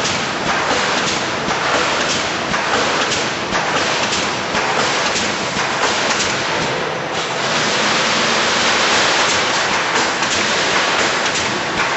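Wire mesh fence welding machine running: a loud, steady hiss packed with rapid irregular clatter, smoothing into a more even hiss for a few seconds past the middle before the clatter returns.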